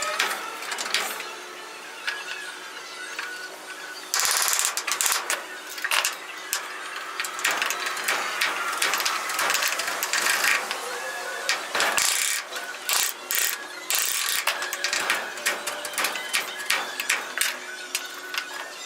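Hand tools at work: a long run of sharp mechanical clicks and rattles, with a few short scraping bursts and the clicks coming in quick runs in the second half.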